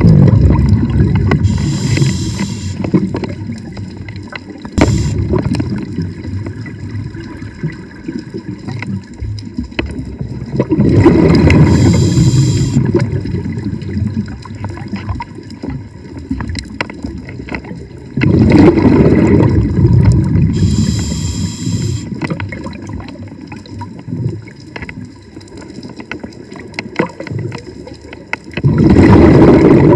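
Scuba diver breathing through a regulator underwater: the exhaled bubbles rush and gurgle in a loud burst four times, roughly every nine seconds, each followed by a shorter hiss, with quieter water noise in between.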